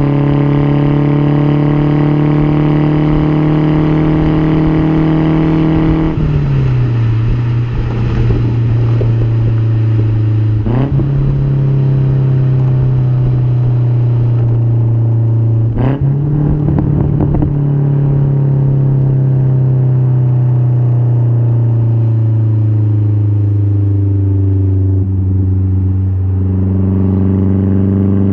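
Mazdaspeed 3's turbocharged 2.3-litre four-cylinder running through a single-exit axle-back exhaust. The steady note sinks slowly, falls about six seconds in, jumps up sharply twice, sags slowly again and rises near the end.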